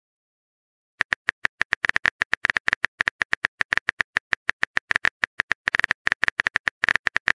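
Rapid phone-keyboard typing clicks, about eight a second, starting about a second in: the simulated key taps of a texting app as a message is typed.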